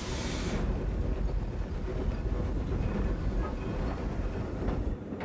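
Southern Pacific 2472, an oil-fired 4-6-2 Pacific steam locomotive, backing slowly, heard from inside the cab: a low steady rumble, with a short hiss at the start.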